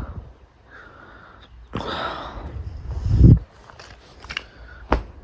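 A person sniffing and breathing heavily through the nose, with one sharp click near the end.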